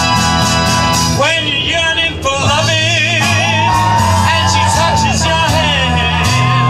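Live song performance: music with a steady beat, and from about a second in a voice singing long, wavering held notes with vibrato over it.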